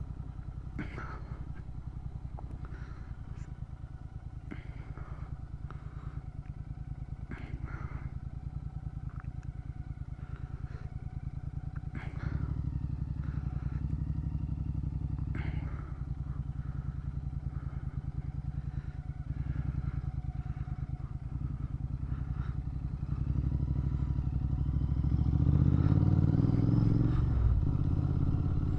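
Motorcycle engine running steadily as the bike is ridden, with a few sharp clicks along the way; the engine gets louder in the last few seconds.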